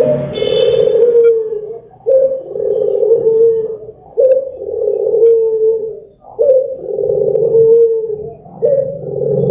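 Puter (Barbary dove) cooing: about five long coos in steady succession, each about two seconds long with a sharp start. A brief higher call comes right at the start.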